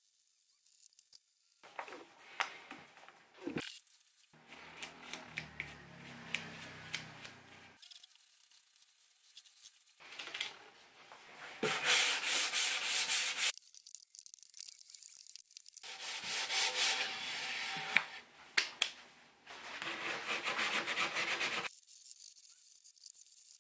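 Wooden rack hand-sanded with sandpaper over a dried coat of water-based varnish: bouts of quick back-and-forth rubbing strokes with short pauses between, loudest about halfway through.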